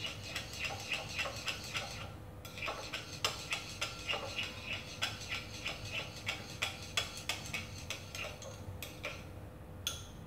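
Chopsticks stirring gelatin in a small ceramic bowl, ticking against the bowl's side about three times a second, with a short pause about two seconds in. The gelatin is melting, the bowl set in hot water.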